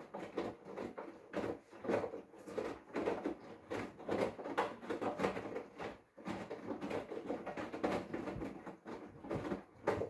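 Hoover front-loading washing machine drum turning in the prewash, wet laundry tumbling and sloshing in water with an irregular splashy patter. There is a brief lull about six seconds in.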